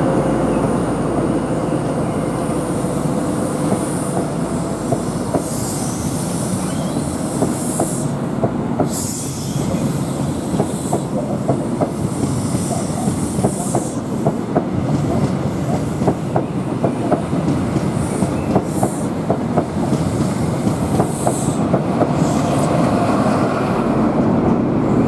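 East Midlands Trains HST (Class 43 power cars with Mark 3 coaches) running past along the platform, wheels clicking over the rail joints, with some hiss early on. It grows louder near the end as the rear power car draws level.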